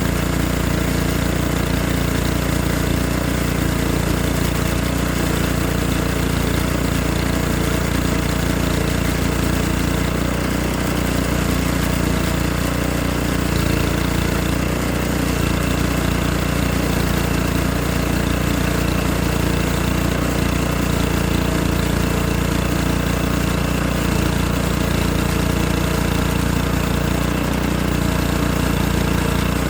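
Engine of a portable sawmill running steadily while milling hardwood, with an even pitch.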